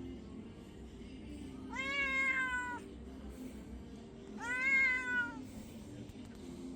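A cat meowing twice, about two and a half seconds apart, each meow about a second long and rising slightly before trailing down.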